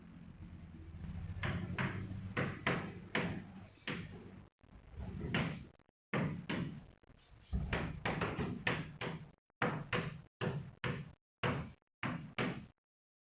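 Handwriting with a pen on paper against a desk: a run of short, irregular knocks and scrapes, several a second, as the worked solution is written out.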